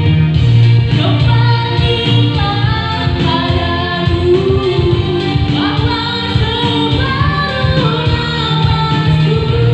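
A woman singing into a microphone through a PA, over Yamaha electronic keyboard accompaniment with a steady low beat. Her voice comes in about a second in.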